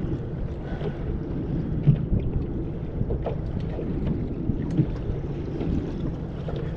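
Wind rumbling on the microphone, with a few short faint knocks.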